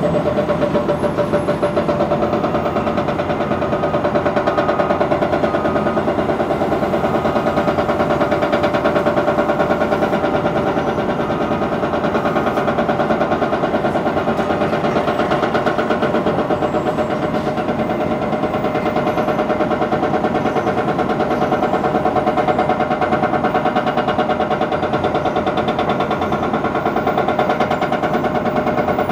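Komatsu PC228LC-8 excavator's diesel engine running steadily under work, a fast even pulsing with a steady tone over it, as the machine digs and swings.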